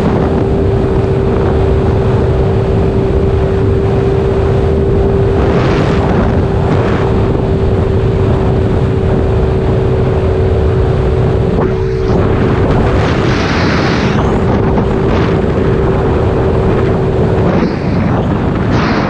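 Kymco Agility 50 scooter engine, fitted with a freshly fitted 72cc big-bore kit that is being run in, cruising at a steady speed and holding one steady note, with heavy wind noise on the microphone. The steady note stops near the end.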